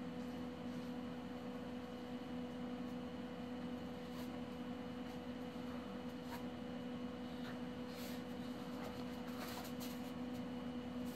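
Quiet room tone with a steady low hum and a few faint scattered clicks and scratches, the scratches bunched a little more toward the end.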